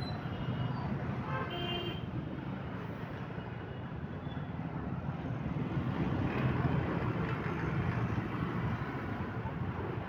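Busy city street traffic: a steady low rumble of passing motor vehicles, with short vehicle-horn toots in the first two seconds.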